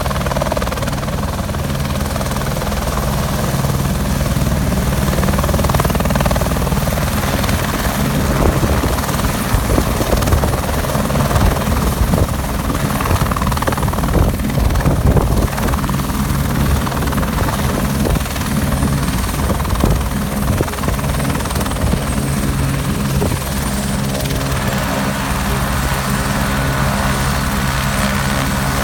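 Helicopter running close and loud, its rotor beating rapidly and most strongly in the middle stretch. Later a steady high whine from the engine joins in.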